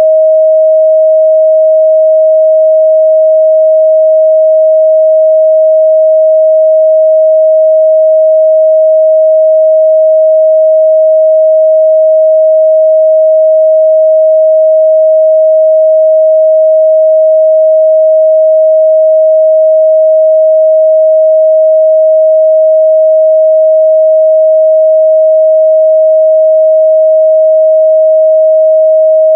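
A steady, loud 631 Hz sine-wave test tone, a single pure pitch held unchanged.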